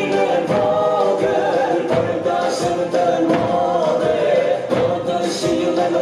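Albanian folk song with group singing over a steady beat of tupan, large double-headed bass drums.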